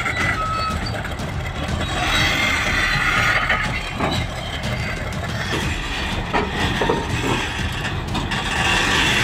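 Caterpillar crawler dozer's diesel engine running under load, with steel tracks clanking and scraping, as it pushes a Cat D8T that has its drive shafts removed up the steel ramp of a lowboy trailer. A few sharp metal clanks come around the middle.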